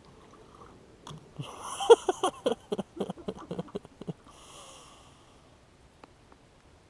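A person's breathy, snorting vocal sounds: a quick run of pulses, about five a second for some three seconds, then one longer breath.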